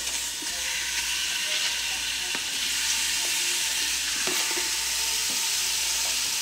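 Chunks of raw pork roast sizzling in hot oil in an Instant Pot on its sauté setting as they go in to brown: a steady frying hiss. A few light clicks from the knife scraping the pieces off the cutting board.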